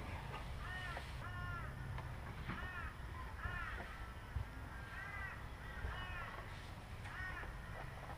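Crow cawing, a long run of short harsh calls about one or two a second.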